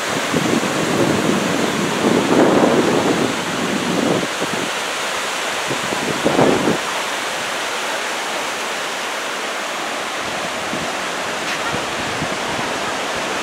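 Surf breaking and washing on a sandy beach, a steady rushing noise, with wind gusting on the microphone twice in the first seven seconds.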